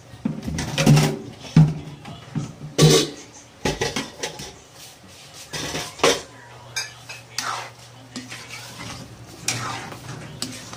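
A utensil clinking and scraping against an aluminium cooking pot as a thick chicken stew is stirred, with several sharp clinks over the first six seconds.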